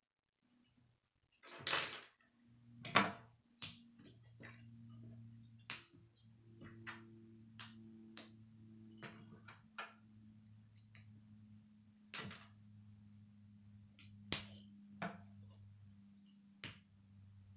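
Plastic K'nex rods and connectors clicking and snapping together as pieces are fitted, in irregular sharp clicks with a few louder snaps, over a faint steady low hum.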